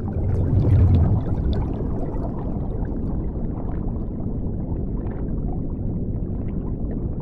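Underwater ambience sound effect: a steady low, muffled rumble with bubbling and gurgling, swelling briefly about a second in.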